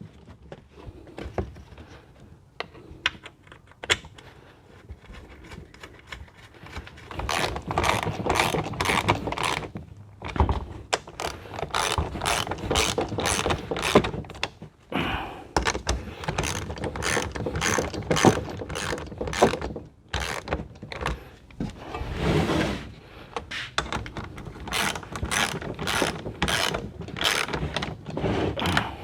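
Ratchet wrench clicking in quick runs with short pauses: bolts being tightened to refit the fan cover onto a radiator. It is faint for the first few seconds, and the runs get louder about seven seconds in.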